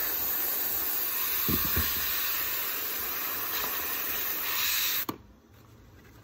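Airbrush blowing a steady hiss of compressed air, which cuts off suddenly about five seconds in.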